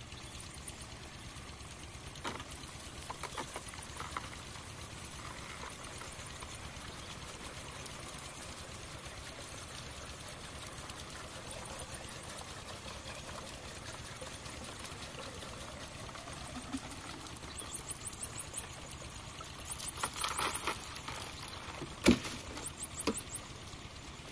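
Water poured from a plastic jerry can into a diesel water pump set's pipe, trickling and splashing inside: priming the centrifugal pump before the engine is started. A sharp knock comes near the end.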